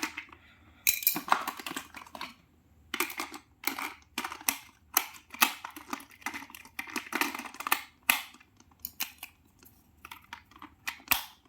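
Irregular clicks, taps and rattles of hard plastic as batteries are fitted into a toy fire truck's battery compartment.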